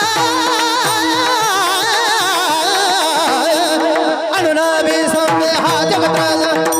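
Marathi kirtan singing: a high, wavering sung melody over a steady held drone. About four seconds in, pakhawaj drum strokes and sharp percussion join in.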